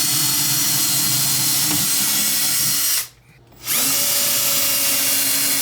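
Electric power drill running under load in two long bursts with a short pause about three seconds in, drilling the mounting holes up through the cabinet for the microwave's top bolts.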